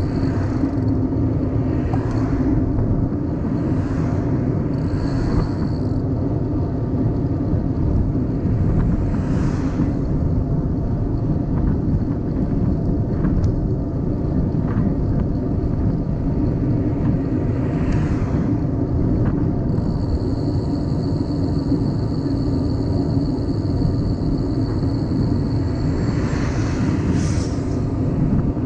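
Wind and road noise on a riding cyclist's camera microphone: a steady low rumble, with a few brief hissing swells.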